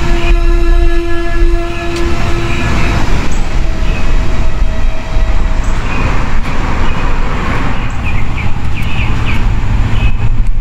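Loud low rumble of a passing train, with a long horn blast on one held note in the first three seconds and a second, higher held note a few seconds in.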